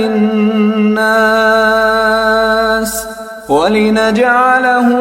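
Male Quran reciter chanting in Arabic, holding long, steady melodic notes on drawn-out syllables, with a short pause for breath about three seconds in before the voice slides back up into the next held note.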